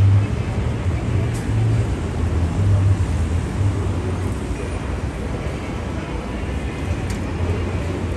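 City street ambience: a steady low traffic rumble with a general hubbub around it.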